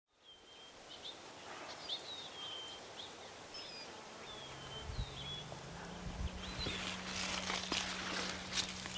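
Field ambience with small birds chirping repeatedly and a low steady hum coming in about four seconds in. From about six and a half seconds, crisp rustling and crackling of leafy beet tops as beets are pulled by hand.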